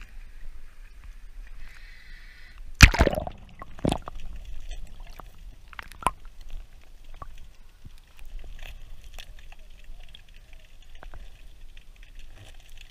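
A loud splash about three seconds in as a freediver ducks under the surface, a second splash a second later, then muffled water sounds with scattered faint clicks, heard from underwater.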